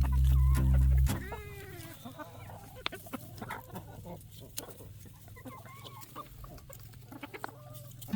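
Background music that stops about a second in, then a flock of chickens clucking, with short rising and falling calls and small scattered ticks.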